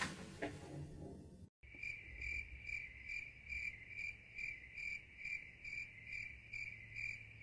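Crickets chirping, a steady run of short high chirps about two and a half a second. They start suddenly out of a brief dead silence about a second and a half in, after faint room noise, like an edited-in sound effect.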